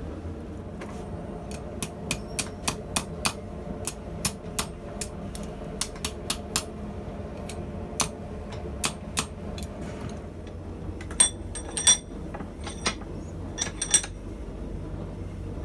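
Hammer blows on steel as a rod is bent and wrapped around a small rivet header: irregular, fairly light strikes, a few a second with short pauses, the two loudest about eleven and twelve seconds in ringing out. A steady low hum runs underneath.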